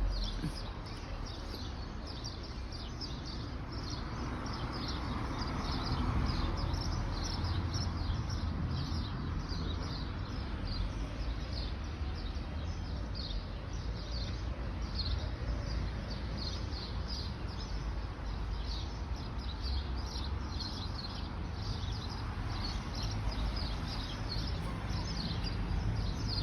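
Small birds chirping and twittering continuously, many short high chirps overlapping, over a steady low background rumble.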